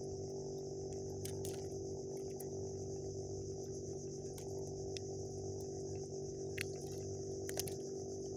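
Steady, insect-like high-pitched buzz over a constant low hum, with a few faint sharp clicks scattered through.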